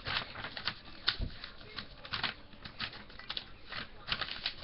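A sheet of paper being folded and creased by hand: irregular rustles and crackles, a few each second.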